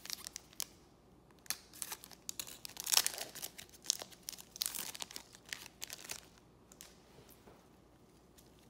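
Foil wrapper of a Panini Select baseball card pack being torn open and crinkled by gloved hands: a quick run of sharp crackling rips, loudest about three seconds in, dying away after about six seconds.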